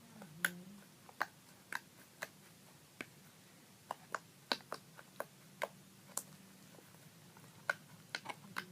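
Homemade slime being poked and squished by hand, giving off small, sharp clicks and pops at irregular intervals, roughly two a second.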